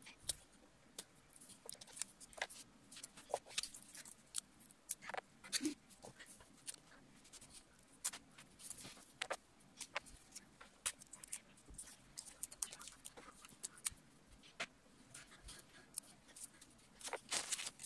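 Thin paper strips and small pieces of clear adhesive tape handled and pressed onto a card: irregular crisp rustles and crackles, with a denser, louder run of them near the end.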